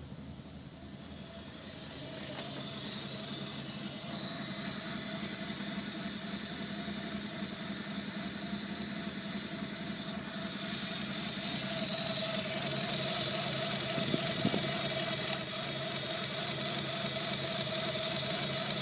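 Mitsubishi 6G75 V6 engine running with a miss on cylinder four, which the owner suspects comes from a bad circuit in the PCM or a pinched wire between the injector and the PCM.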